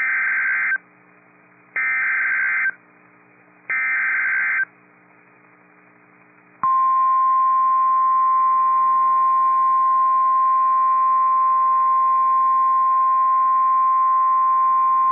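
NOAA Weather Radio emergency alert: three short bursts of SAME digital header data tones, then, about six and a half seconds in, the steady 1050 Hz warning alarm tone held for about nine seconds. It marks the start of an urgent warning broadcast, here a tornado warning.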